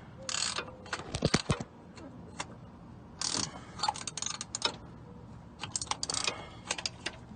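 Hand tools clicking and rattling in short bursts, several times over, like a ratchet and loose metal tools being worked under a car.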